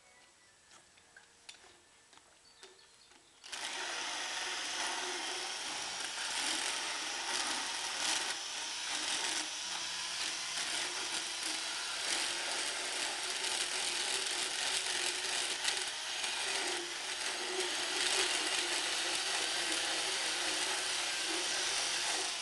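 Motorized equine dental float starting suddenly about three and a half seconds in and running steadily, a loud grinding rasp as it files down a horse's teeth.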